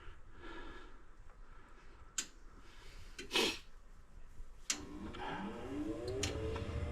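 A few soft clicks, then a sharp click about two-thirds in as a gas furnace's motor starts, most likely the draft inducer, its hum rising in pitch as it spins up at the start of the heating cycle.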